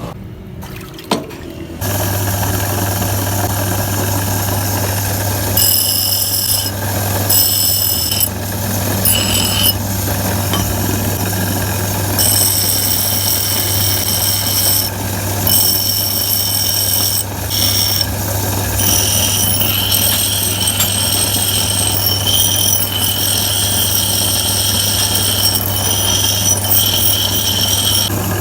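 An electric power tool's motor switches on about two seconds in and runs at a steady hum. A high-pitched whine comes and goes over it in stretches, as the chisel's metal is worked against the tool.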